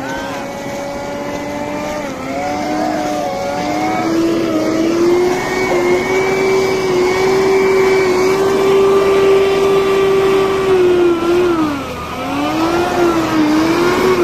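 Hino ZY truck's diesel engine working hard under load as it pushes through deep floodwater. It runs with a steady high whine that climbs at first, then dips sharply about twelve seconds in and picks back up.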